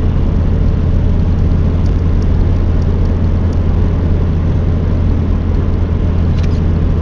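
Steady car road noise heard from inside the cabin while driving: a low engine and tyre hum with a hiss of wind and road over it, and a faint click about six seconds in.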